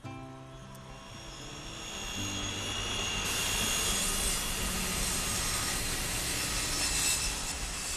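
Large sawmill circular saw running: a whine that builds over the first few seconds and then holds loud and steady, with a high shrill edge, over fading music.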